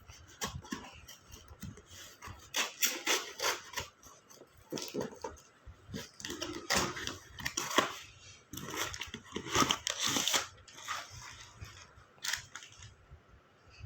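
Smartphone box packaging being handled and opened: irregular crinkling, tearing and clicking of cardboard and plastic, in busy clusters through the middle.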